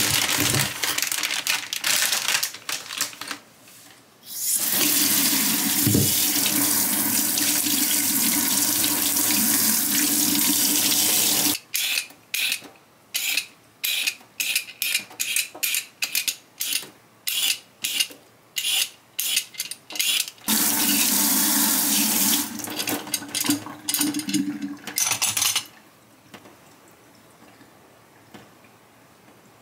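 Water from a tap running into a sink. It runs steadily for several seconds, then breaks into quick short splashes about twice a second, runs steadily again, and stops a few seconds before the end.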